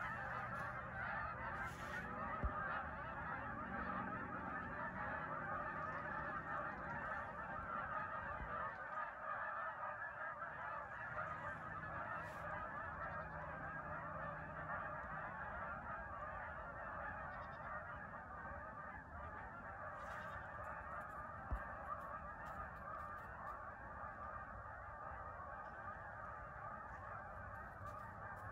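A large flock of geese flying overhead, honking continuously in a dense chorus of overlapping calls that slowly grows fainter toward the end.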